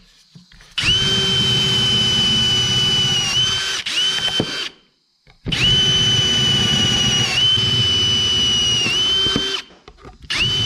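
Power drill with a twist bit boring through a small steel sheet-metal plate, enlarging spot-weld holes to a bigger size ready for plug welding. The drill whines steadily in two long runs of about four seconds each, with a short break between, and starts up again near the end.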